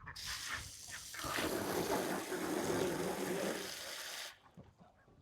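Running water gushing and pouring, steady for about four seconds, then stopping abruptly.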